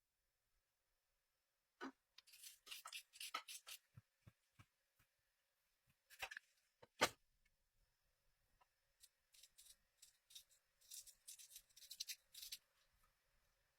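Faint kitchen handling noises: short scraping strokes and clicks in two clusters, with one sharper knock about seven seconds in.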